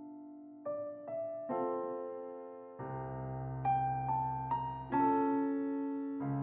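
Background piano music: a slow run of single notes and chords, each struck and then fading, with a deeper chord coming in about three seconds in.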